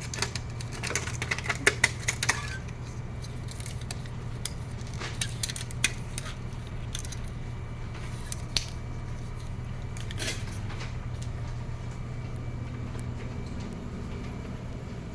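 Light clattering and clicking of small hard objects, densest for about a second and a half a second in, then a few scattered clicks, over a steady low machine hum.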